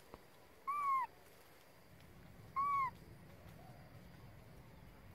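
Baby macaque giving short, clear coo calls, twice, about two seconds apart. Each call is a single pitched hoot that rises a little and falls away.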